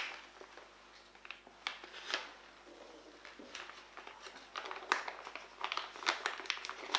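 Clear plastic piping bag crinkling and crackling as it is filled with sponge batter and handled, in short scattered crackles that get busier in the second half.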